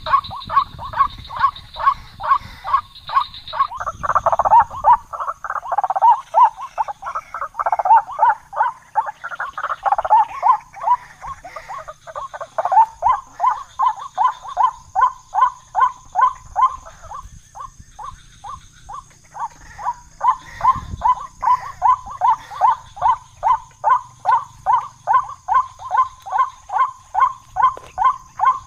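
White-breasted waterhen calling: a long run of rhythmic croaking notes, about three a second, denser and louder for several seconds near the start and thinning briefly about two-thirds of the way through.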